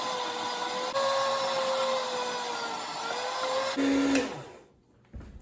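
Electric meat slicer running, its motor and spinning blade humming steadily while turkey breast is sliced, with the pitch dipping slightly about three seconds in. About four seconds in it drops to a lower tone, then winds down and stops.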